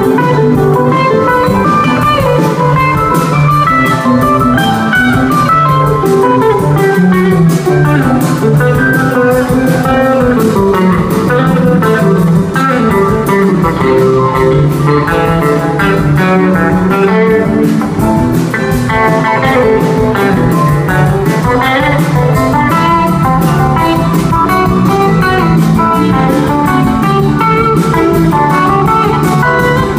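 Live rock band playing an instrumental jam without singing: electric guitars over bass and drum kit, loud and steady.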